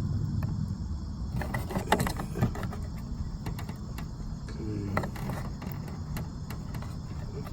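Scattered clicks and light knocks of hands and tools working the plastic liftgate trim and window switch loose, over a steady low rumble.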